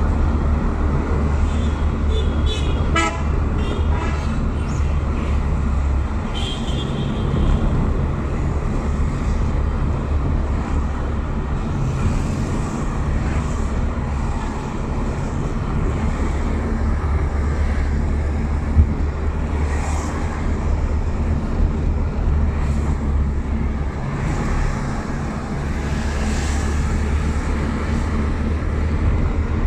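Steady engine rumble and tyre noise of a car driving on a wet road. A vehicle horn toots briefly about two to three seconds in.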